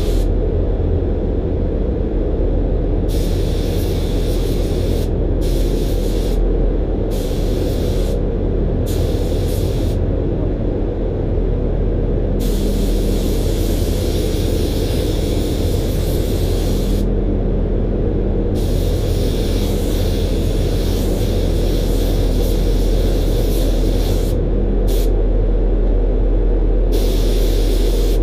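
DeVilbiss gravity-feed spray gun spraying primer, its air hiss starting and stopping with each trigger pull: several short bursts of about a second, then longer passes of several seconds. Under it runs a steady low rumble.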